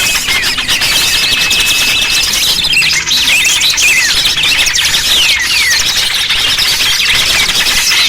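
Bird-lure (pikat) recording of a noisy mass of small songbirds chattering and chirping all at once, the sound of small birds in commotion used to draw other small birds in. A thin steady whistle sounds at the very start and again from about one to two seconds in.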